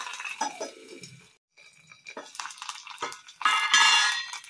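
Metal kitchenware clinking and clattering: a steel lid and utensils knocking against an aluminium cooking pot, with a louder ringing metallic clatter near the end.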